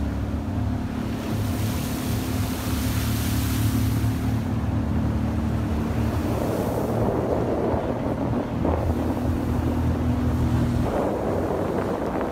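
Skiff's outboard motor running at a steady speed, with water rushing past the hull and wind on the microphone. The engine's hum drops away near the end.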